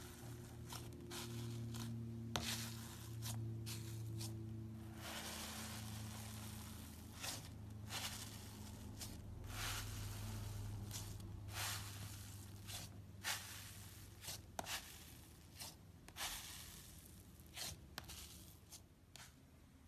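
Thick white fluffy slime pressed and squeezed by hand: irregular crackles and small pops with soft squishing and tearing as the fingers sink in and pull through, the pops growing sparser near the end.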